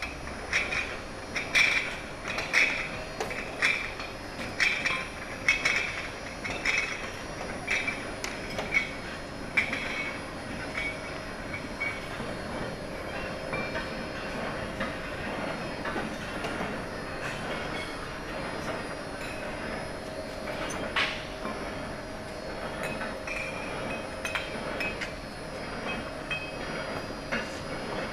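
Rotary glass bottle and vial washing machine running, with glass bottles clinking and clattering against each other and the machine's metal parts. The clinks come thick and fast for about the first ten seconds, then thin out into a steady mechanical running sound with only occasional clinks.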